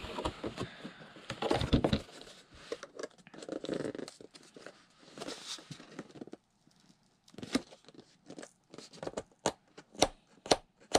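Cardboard and clear plastic doll packaging being handled and torn open, with tearing and crinkling in several spells. Near the end come scattered light clicks and taps.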